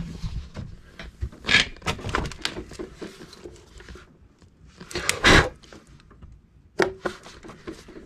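Handling noise from working around a portable fridge: scattered clicks and light knocks, with a louder bump about five seconds in.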